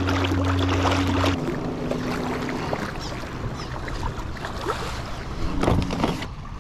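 Water sloshing and splashing around a kayak, with wind on the microphone and scattered small knocks of gear. A steady low hum with a few held tones runs under it and stops about a second and a half in.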